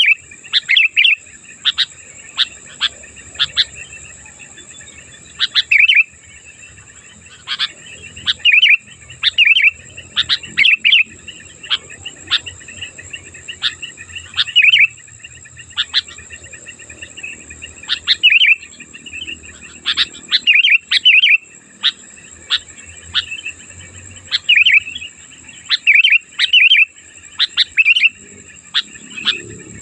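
Sooty-headed bulbul (kutilang) calling: loud, sharp chirps in quick clusters about every second, over a steady high-pitched drone.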